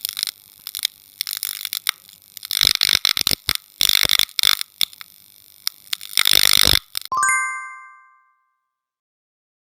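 Editing sound effects: a run of sharp clicks and hissy swishes, then a single bell-like ding about seven seconds in that rings out for about a second.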